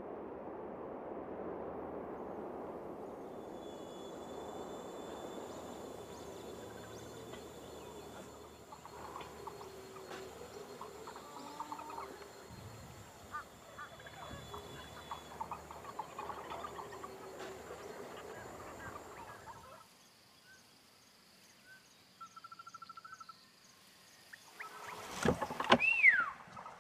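Rural outdoor ambience: a steady hiss at first, then insects buzzing high and thin with scattered small clicks. About 22 seconds in there is a short pulsed trill, and near the end a louder cluster of knocks with a brief falling squeal.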